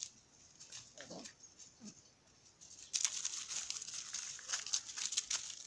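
A puppy gives two faint, short whimpers. Then, from about three seconds in, dry leaves and twigs crackle on the ground.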